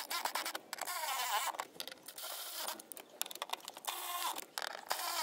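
Milwaukee cordless power tool running in short spurts, driving in the steering column's mounting bolts, with mechanical clicking between the runs.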